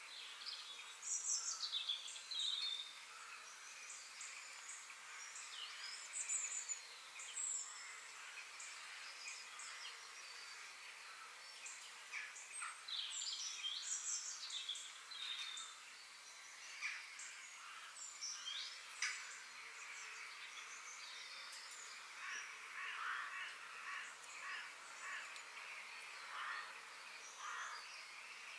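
Several songbirds singing and chirping, with many short whistles and quick notes, over a faint steady background hiss. The calls are busiest after about twenty seconds in.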